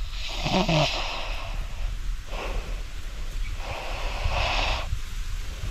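A person breathing heavily close to the microphone, a noisy breath roughly every one to two seconds.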